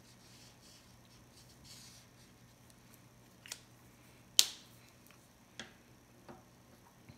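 Art markers being handled on a table: four sharp plastic clicks spread over a few seconds, the loudest a snap a little past halfway.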